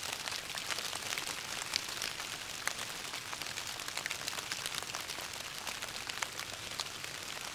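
Steady rain falling on wet paving stones, many single drops ticking through an even hiss.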